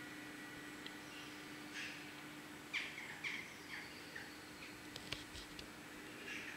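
Faint small-bird chirps: a handful of short, downward-sliding calls in the middle, over a low steady hum, with a few sharp clicks about five seconds in.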